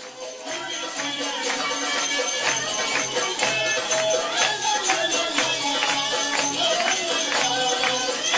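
Oriental belly-dance music with a quick, steady percussion beat under a sustained melody, swelling in over the first half second.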